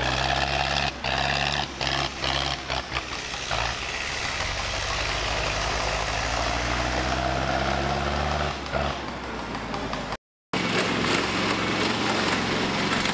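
Tractor engines running: loud, choppy sound that starts and stops several times in the first three seconds, then a steady engine drone. The sound drops out briefly about ten seconds in.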